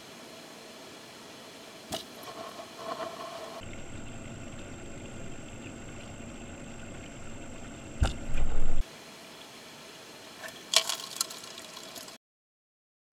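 Muffled, steady hiss of an underwater camera's sound in a tank, with a few sharp knocks and one loud, low thump about eight seconds in; the sound cuts out just before the end.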